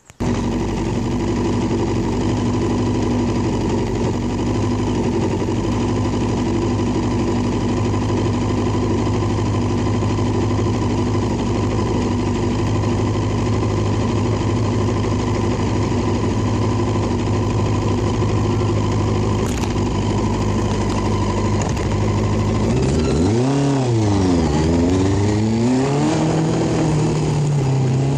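Small motorbike engine catching and then idling steadily, then revved near the end, its pitch rising and falling a few times as the bike pulls away.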